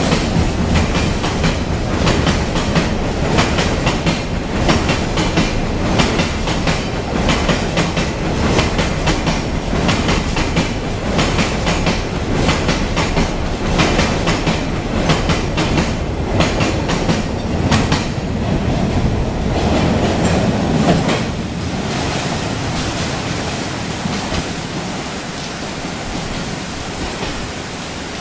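Freight coal train rolling past, its wagon wheels clicking in a steady rhythm over the rail joints. About two-thirds of the way through the sound drops and fades as the train moves away.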